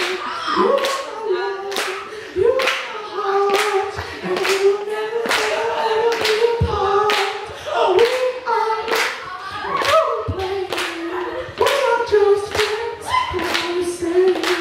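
A boy singing unaccompanied into a microphone, drawn-out held notes without clear words, over hand claps keeping a steady beat of about three claps every two seconds.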